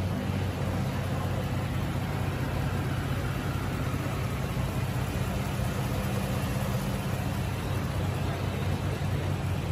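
2018 Ford F-150 Raptor's 3.5-litre twin-turbo V6 idling steadily, heard from over the open engine bay.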